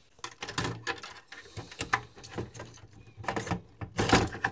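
Yamaha KX580SE cassette deck's plastic tape mechanism being handled and seated back into the deck chassis: a run of irregular clicks and knocks. The loudest knock comes near the end.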